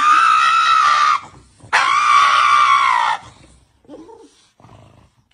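Pug screaming as its nails are clipped, in two long, high-pitched cries of over a second each: a dramatic overreaction to a nail trim.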